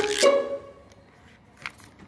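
Electronic synthesized melody that stops about half a second in. Faint background noise follows, with a single small click about one and a half seconds in.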